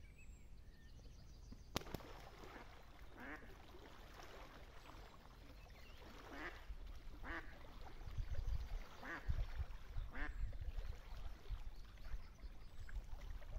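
Live decoy duck quacking faintly in a string of single quacks, about one every second or so, starting about three seconds in. A low rumble builds underneath from about six seconds in.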